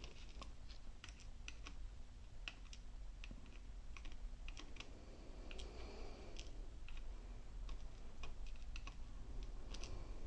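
Irregular light clicks and taps of small metal lock parts, pins and tools, being handled while an Assa 700 lock is taken apart.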